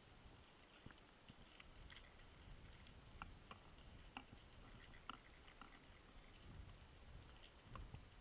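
Faint underwater crackle: scattered sharp clicks and ticks at irregular times, a few each second, over a low rumble, the ambient sound of a rocky reef picked up through the camera housing.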